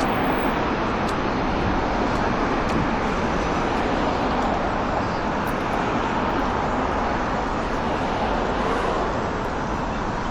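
Steady road traffic noise on a busy city street: a continuous wash of passing cars.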